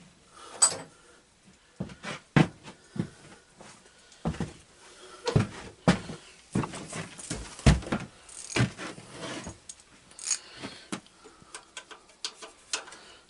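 Scattered, irregular knocks and clinks of hand tools and metal parts being handled.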